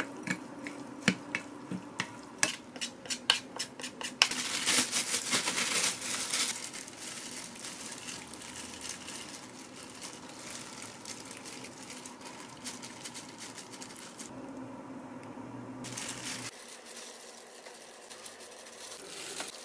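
Silicone spatula stirring seasoned rice in a glass bowl: a run of sharp taps and clicks against the glass, then a couple of seconds of louder scraping and stirring. After that, quieter handling of the rice as it is spooned into fried tofu pouches.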